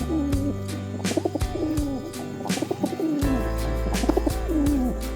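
Background music with a steady beat, about two beats a second, with short, low, falling bird-like calls over it.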